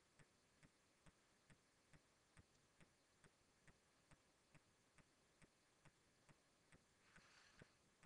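Near silence, with faint, very regular ticking a little over twice a second and a brief soft hiss about seven seconds in.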